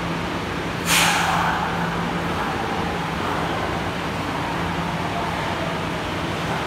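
Tokyo Metro 02 series subway train approaching the platform through the tunnel: a sudden rush of noise about a second in that fades over a second or so, then a steady running sound with a faint tone slowly falling in pitch as the train slows.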